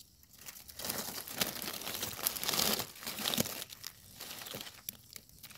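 Dry fallen leaves crackling and rustling as a hand pushes through the leaf litter to pick a mushroom. The crackling is busiest a second or two in and dies down to a few faint crackles after about three and a half seconds.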